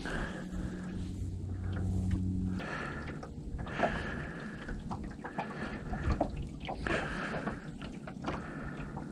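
An electric trolling motor holding the boat on spot lock hums steadily, then cuts off about two and a half seconds in; light clicks and knocks follow.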